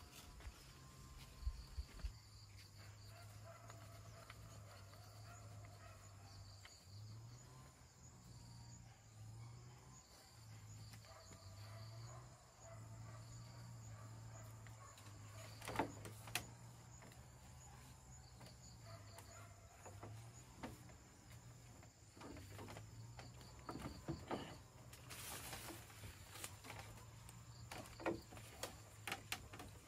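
Faint outdoor ambience: quiet insect chirping over a low steady hum, with a few sharp knocks about halfway through and again near the end.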